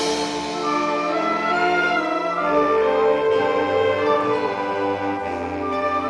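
A school concert band of woodwinds, brass and percussion playing held, changing chords, with the ring of a loud crash dying away at the start.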